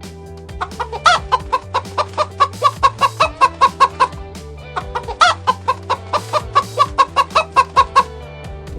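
Chicken clucking in two quick runs of evenly spaced clucks, each run opening with a louder call, over background music with sustained low notes.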